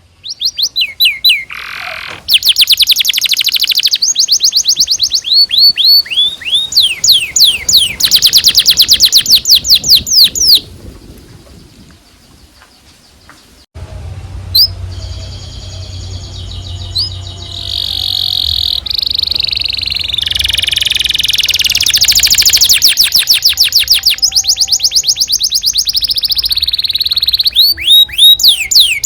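Domestic canary singing a long song of fast repeated trills and rolls, made of rapid high sweeping notes. The song drops away about ten seconds in and picks up again a few seconds later over a low hum.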